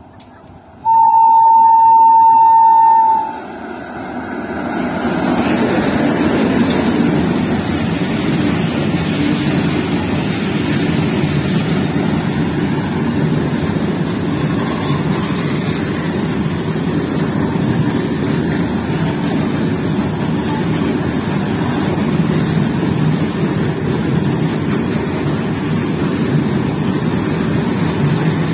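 An Indian Railways electric locomotive sounds one steady horn blast lasting a little over two seconds, about a second in. Then a freight train of red flat wagons runs close past, with a steady rumble and clatter of wheels on the rails.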